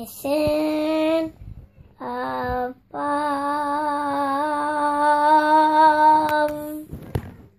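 A young girl sings three long wordless notes, the last held about four seconds with a slight waver.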